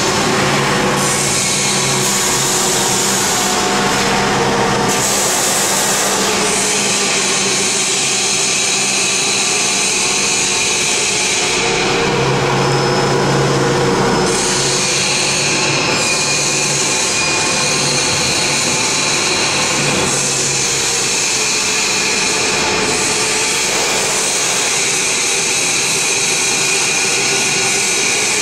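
Paper egg tray making machine line running: steady mechanical noise with a low hum, from the drying line and tray conveyor at work.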